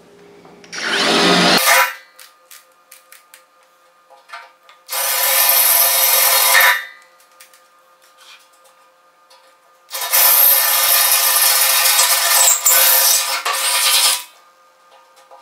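Cordless drill boring into a steel tractor loader bucket with a larger bit to enlarge a pilot hole, running in three bursts: a short one about a second in, another at about five seconds, and a long one from about ten to fourteen seconds.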